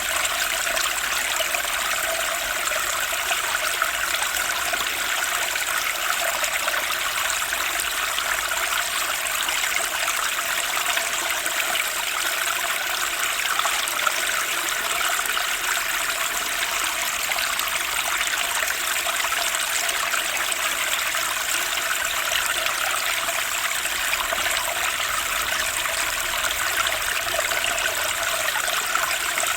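Turbulent stream water rushing and splashing steadily over rocks, a constant bright noise with little low rumble.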